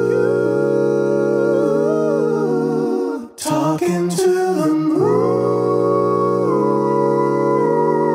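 Layered a cappella vocal harmony: one man's voice multitracked in eight parts, from bass up through soprano plus the melody, holding sustained wordless chords that shift every second or so. It breaks off briefly a little past three seconds in, then a new full chord swells in and is held.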